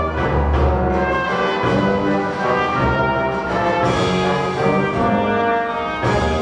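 Orchestral music with prominent brass, playing held notes that change every second or so.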